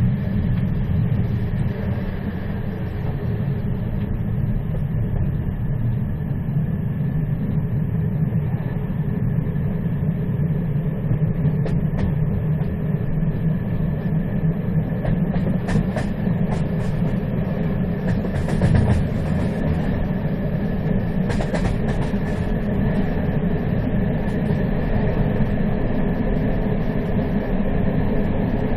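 A moving train running steadily, with a continuous low rumble from the wheels on the rails and a faint steady whine. A few brief high-pitched noises come between about 15 and 23 seconds in.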